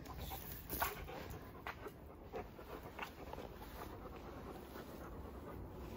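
Great Pyrenees puppy panting quietly, with a few faint short clicks.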